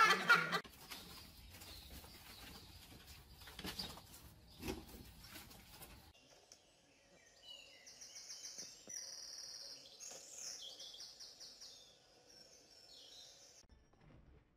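A pet exercise ball rolling and knocking across a tile floor, with a few knocks about four seconds in. Then comes a run of high, quick chirping calls that stops short about a second before the end.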